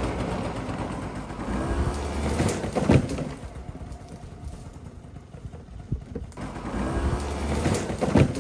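Small motor scooter engine revving with a rising pitch, then a sharp crash about three seconds in as the scooter tips over into the grass. The same revving and crash come again near the end.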